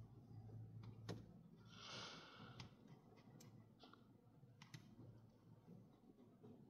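Near silence inside a car cabin: a faint steady low hum with a few soft clicks and a brief hiss about two seconds in.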